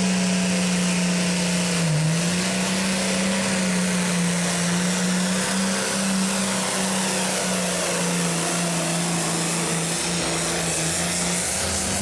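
Hot farm stock pulling tractor's diesel engine at full throttle, dragging the weight sled. It holds a steady high-revving pitch that dips briefly about two seconds in, then sags lower toward the end as the load builds.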